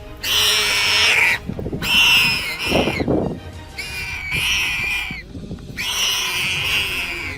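Wild boar squealing in a run of about five loud, wavering cries, each about a second long with short breaks between, and a brief lower rough sound about three seconds in.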